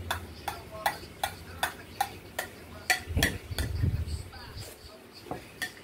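A spoon scraping and clicking against a white ceramic bowl in quick, even strokes, about two and a half a second. About three seconds in comes a low slurp as the bowl is tipped up and drunk from, then a couple more clicks.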